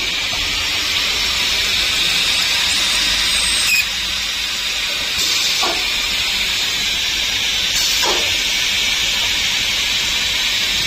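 CNC drilling and milling machine running its automatic drilling cycle, a steady high hiss with a few brief sharper sounds about four, six and eight seconds in.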